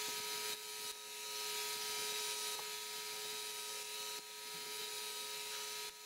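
Pencil scratching on paper as lines are drawn, heard as a steady dry hiss with faint steady hum tones beneath. The level steps up and down abruptly a few times.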